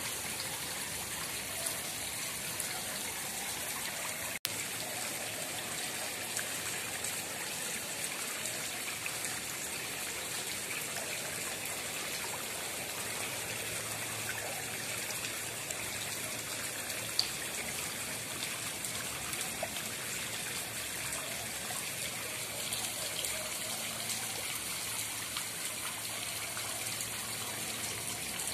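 Pond water trickling and splashing steadily, with a few faint clicks and a brief dropout about four seconds in.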